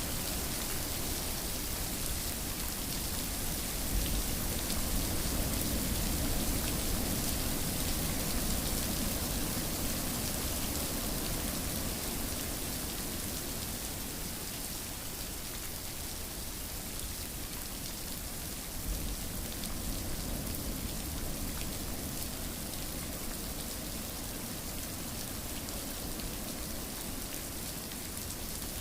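Steady rain falling, an even hiss of drops on surfaces, slightly louder about four to ten seconds in.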